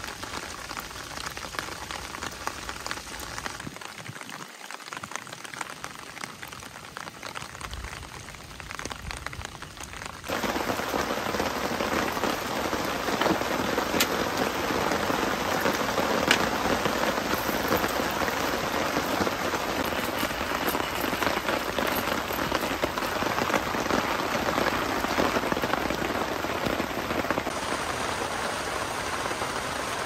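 Steady rain falling, becoming louder about ten seconds in, with a couple of faint clicks.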